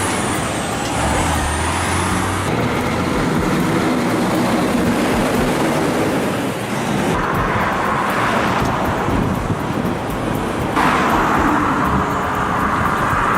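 Heavy transport truck engine running steadily under load, with road noise.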